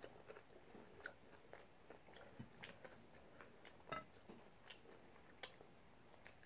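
Faint chewing of a soft flour-tortilla taco, with scattered light mouth clicks about once a second.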